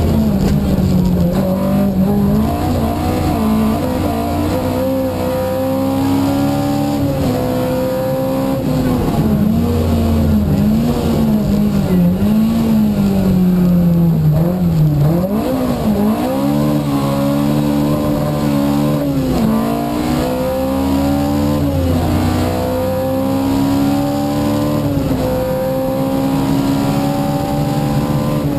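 Opel Kadett 2.0e rally car's four-cylinder engine, heard from inside the cabin, revving up through the gears with a drop in pitch at each shift. About halfway through the revs sag low under braking, then it pulls hard up through the gears again.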